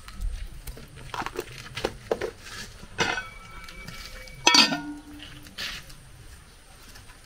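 Metal pots and utensils knocking together during cooking: scattered light knocks, a sharp ringing clink about three seconds in, and the loudest clang about a second and a half later, ringing on briefly.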